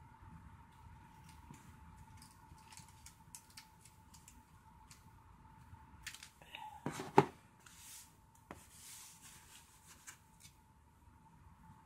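Scissors making a series of small snips through a thin plastic screen-protector film. About seven seconds in there is one loud clack as the scissors are set down on the table.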